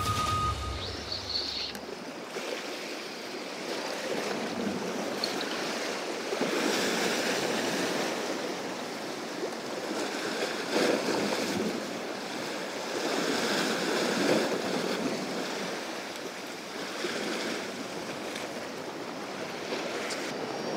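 Surf washing against shore rocks, swelling and ebbing every few seconds.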